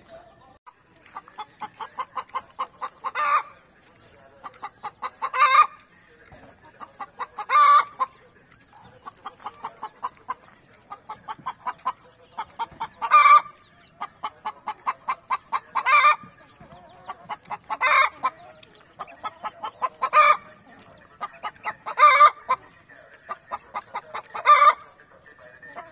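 Chicken clucking in repeated runs of quick clucks, most runs building to a louder squawk, about every two to three seconds.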